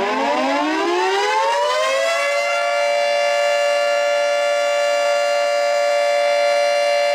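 Federal Signal 2T22 dual-tone mechanical warning siren winding up, its pitch rising over the first two seconds, then holding a steady wail.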